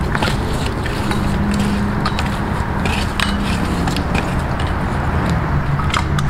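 Steady low motor rumble, like a passing vehicle or nearby traffic, its pitch shifting slightly near the end. Scattered light clicks and knocks run over it, fitting a long extension pole being worked up rough tree bark.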